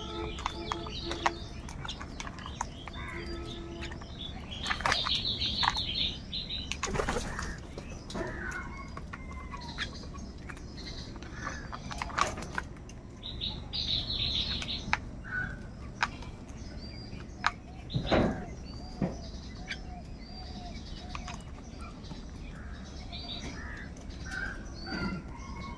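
A flock of house crows at a food bowl, with wings flapping now and then among many short bird calls and chirps. Two bursts of rapid, high chattering notes stand out, about five and fourteen seconds in.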